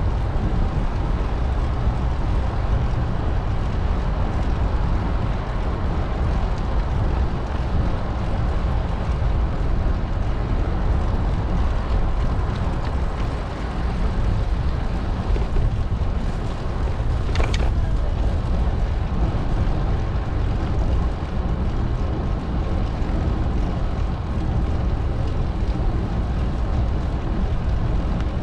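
Steady wind rush on the microphone and rolling noise from a bicycle being ridden, heaviest in the low range. A brief sharp sound comes about two-thirds of the way through.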